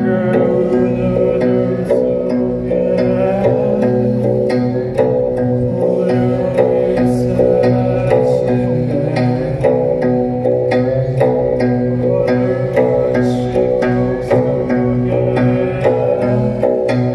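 Live band music: a short plucked-string figure repeating over a steady low bass line.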